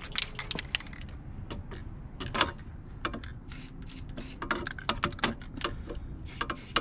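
Aerosol spray-paint can putting down a coat of white paint in several short hissing sprays, with scattered clicks between them as the can is handled.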